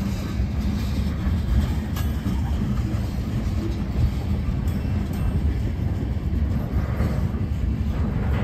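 Freight train cars, tank cars and loaded bulkhead flatcars, rolling past: a steady low rumble of steel wheels on rail, with a few sharp clicks, the clearest about two seconds in.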